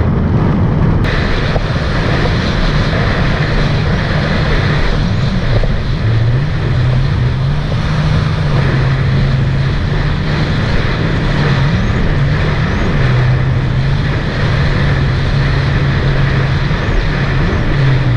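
Sea-Doo jet ski engine running under way, its pitch stepping up and down as the throttle changes, under a heavy rush of wind and water noise.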